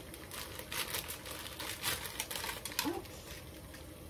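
Plastic packet of pancit canton instant noodles crinkling and rustling in the hands as it is emptied, with scattered light crackles.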